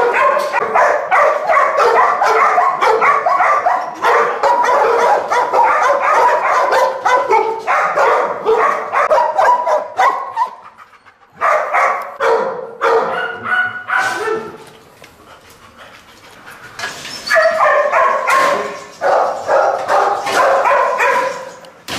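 Dogs in boarding-kennel runs barking rapidly and almost without pause, the barks overlapping; the barking drops away briefly twice around the middle.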